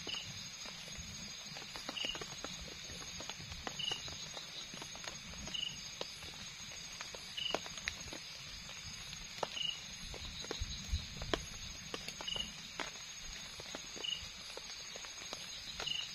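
Night forest ambience: a steady high insect drone, with a short call repeating about every two seconds. Scattered light clicks and taps of a spoon against a bowl during eating.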